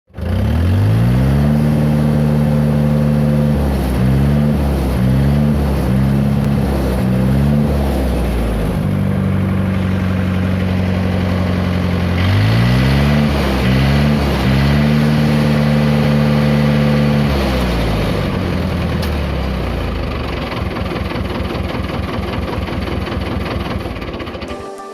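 Tractor engine revved up and down repeatedly, with a few quick blips of the throttle in between, then dropping back to a lumpy idle in the last few seconds.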